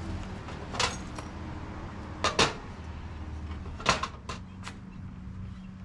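Hard clacks and knocks of metal joint parts and tools being handled and set down on a workbench, about six in all, including a quick double knock a little past two seconds in. A low steady hum runs underneath.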